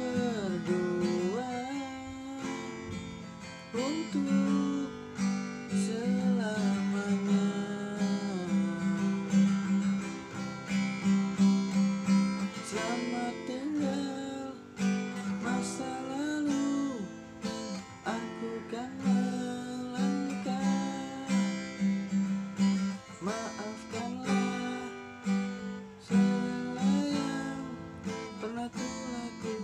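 Steel-string acoustic guitar with a capo, chords strummed and picked in a steady rhythm, with a melody line sliding between notes above it.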